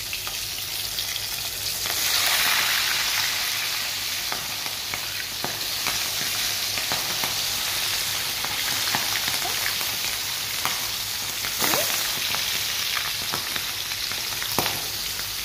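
Bone-in meat pieces deep-frying in hot oil in a wok: a steady, loud sizzle with scattered pops and spatters, growing louder about two seconds in.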